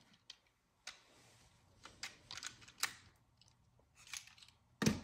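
Light plastic clicks and rattles of a Beyblade launcher and ripcord being handled, with one louder sharp knock near the end.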